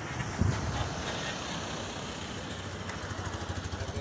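Street traffic: vehicle engines running with a steady low rumble and tyre noise, with a brief low thump about half a second in and a pulsing engine rumble near the end.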